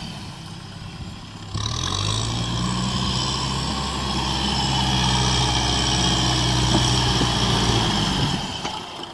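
Small tractor's diesel engine working under load as it pushes a front blade through deep mud and water. The engine picks up to a higher, louder run about a second and a half in, holds steady, and eases off near the end.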